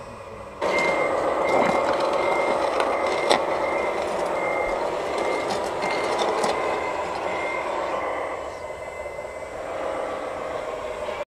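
Radio-controlled model construction machine running, with a reversing beeper giving a regular, evenly spaced beep over a steady motor sound and a few scattered clicks. It starts abruptly about half a second in and cuts off at the end.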